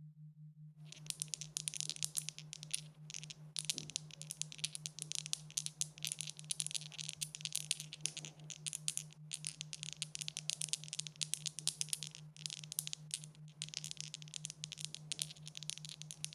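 Dice rattling together in a dense, continuous run of sharp clicks, starting about a second in with a few brief breaks, then cutting off suddenly.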